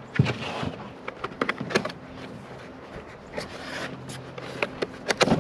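Cardboard box being handled and opened on a tabletop: scraping and rustling of the cardboard lid with several sharp knocks, the loudest near the end.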